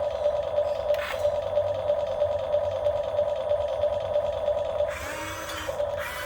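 Small electric motor of a radio-controlled excavator running steadily with a fluttering hum, with brief higher whirring about a second in and again around five seconds in as its drives work.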